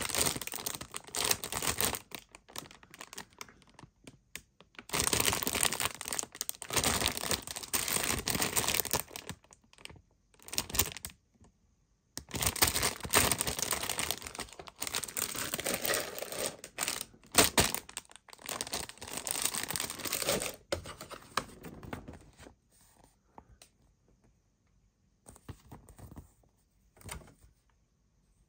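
Clear plastic bags holding model-kit parts runners crinkling and rustling as they are handled, in bursts of a few seconds. After about two thirds of the way through, only a few faint rustles remain.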